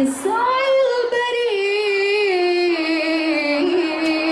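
A woman singing an Islamic devotional song solo into a microphone. She holds long ornamented notes that slide in pitch and step lower over the first three seconds, then settles on one steady held note.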